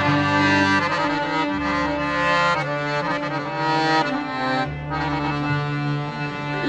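Instrumental interlude of an Egyptian orchestral song between sung verses: the ensemble plays sustained, held chords under a melody line.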